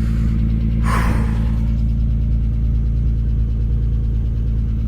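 Honda car engine idling steadily, with a brief burst of noise about a second in.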